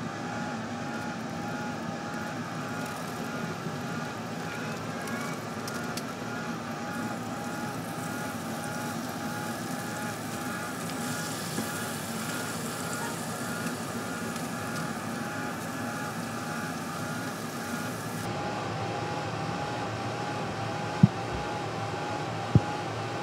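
Pellet grill running on a portable power station: a steady fan hum with a repeating warble over it. Two sharp clicks come near the end.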